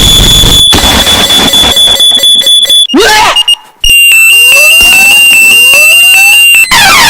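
Very loud, distorted electronic alarm sound: a steady high beep, a brief cut-out about three and a half seconds in, then a steady high tone with three rising sweeps about a second apart, and a fast repeating stepped tone pattern near the end.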